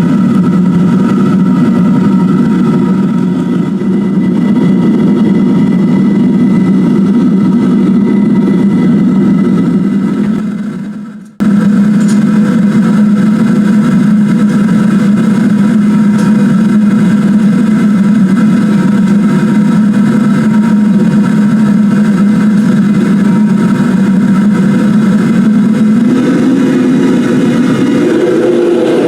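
Propane burner of a home foundry furnace running at 20 psi: a loud, steady roar like a jet engine, with a deep rumble and faint whistling tones above it, as the furnace heats for its first cure. About eleven seconds in it fades and breaks off, then comes straight back at full strength.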